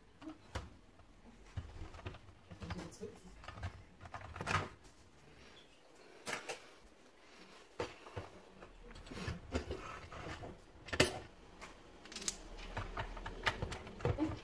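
Scattered clicks and knocks of the plastic floor-nozzle housing of a cordless stick vacuum being handled and taken apart, the sharpest about four and a half seconds in and about eleven seconds in.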